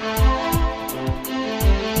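Intro music with a deep, steady beat about twice a second over sustained chords.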